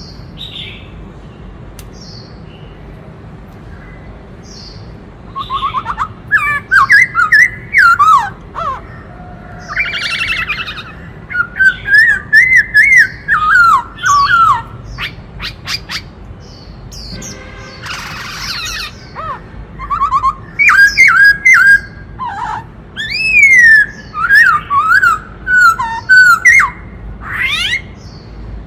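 Black-throated laughingthrush singing a loud, varied song of quick warbling whistled phrases mixed with sharp clicking notes. It starts about five seconds in and goes on in bursts with short pauses, over a faint steady background hum.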